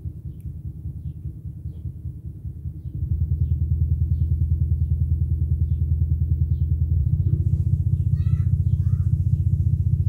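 Sony SRS-XB43 portable Bluetooth speaker playing a low-frequency bass test: deep bass that steps up in loudness about three seconds in and shifts again around seven seconds.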